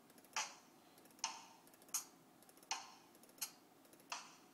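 Software drum machine's percussion samples played back: six short, sharp hits about three-quarters of a second apart, bright with no low bass.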